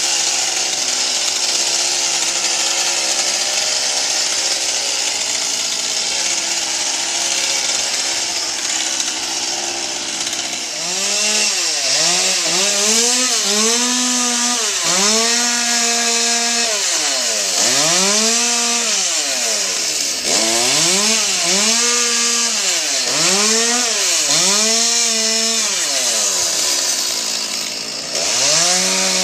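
Chainsaw cutting tree limbs. It runs steadily under load for about the first ten seconds, then revs up and drops back again and again, about once every two seconds.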